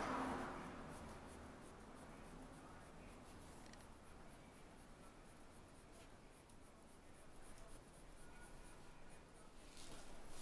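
Pencil scratching on paper in shading strokes, loudest right at the start and faint after that.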